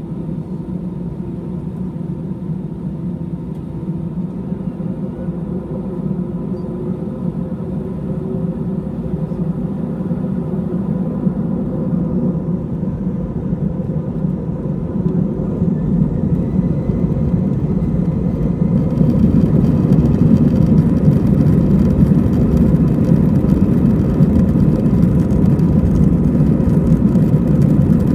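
Jet airliner's engines and rumble heard inside the cabin as the plane taxis, a steady hum that slowly grows. About two-thirds of the way in the engines spool up and the noise grows clearly louder and hissier as the takeoff roll begins.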